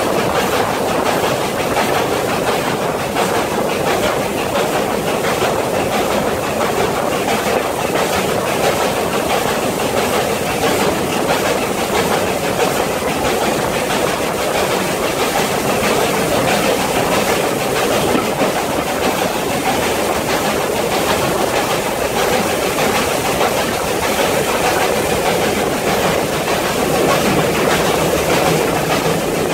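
Steam-hauled train, GWR King class 6023 King Edward II and its carriages, running at speed through a tunnel: a steady loud noise of wheels on rail and the locomotive working, enclosed and echoing by the tunnel walls, heard from an open carriage window.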